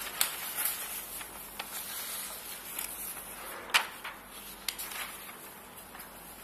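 Newspaper pages being handled: scattered light rustles and clicks, with one sharper tap a little under four seconds in.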